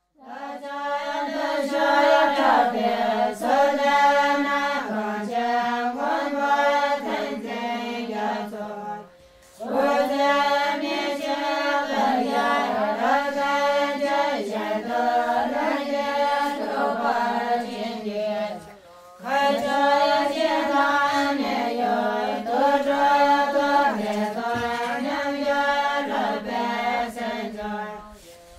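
Background music of chanting voices on held notes that move in steps, in three long phrases with short breaks about nine and nineteen seconds in.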